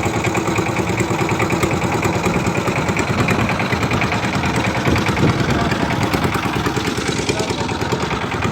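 A boat's engine running steadily, with a rapid, even chugging beat.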